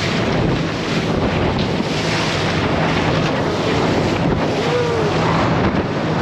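Wind buffeting the microphone over the rush of water and the steady hum of a catamaran fishing boat's engines running at speed on open water.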